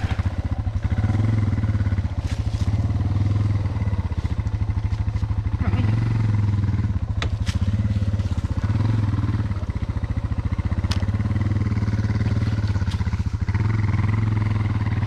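Suzuki DR650's single-cylinder engine running at low revs, the revs easing up and down every second or two, with a few sharp clicks.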